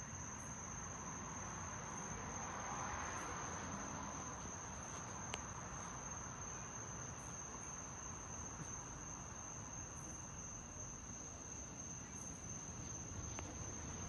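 Night insects trilling steadily outdoors, one continuous high-pitched tone over faint background hiss, with a single soft click about five seconds in.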